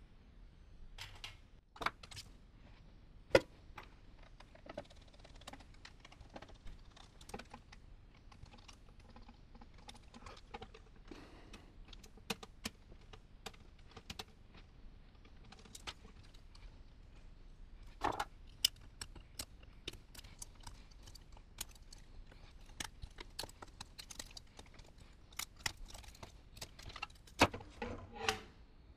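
Scattered clicks, clinks and knocks of hand tools, metal parts and circuit boards being handled while an electronics chassis is taken apart. The loudest is a single sharp knock about three seconds in, with a cluster of knocks near the end.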